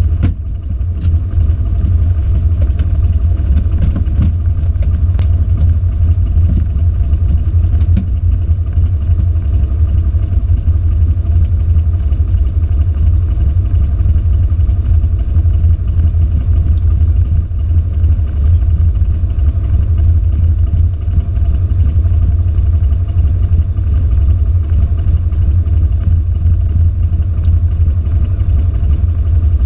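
Cessna 172's piston engine and propeller running steadily at low power, heard from inside the cabin as a loud, deep, even drone.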